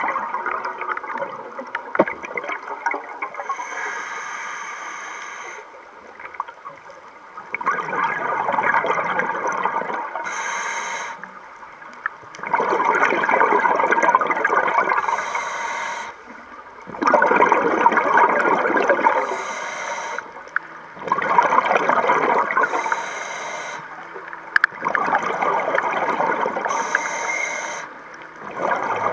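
Scuba diver breathing through a regulator underwater: a bubbling exhale of about three seconds, every four seconds or so, with a short high hiss from the regulator on each inhale between them.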